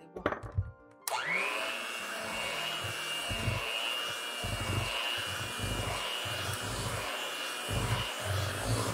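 Electric hand mixer switched on about a second in, running at a steady whine as its beaters briefly beat milk into cake batter, then cut off at the end.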